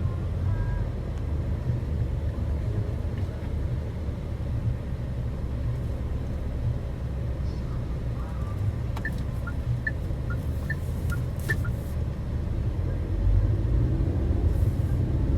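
Steady low rumble of a car driving, heard from inside the cabin, growing a little louder near the end. A few short faint high beeps and clicks come through about two-thirds of the way in.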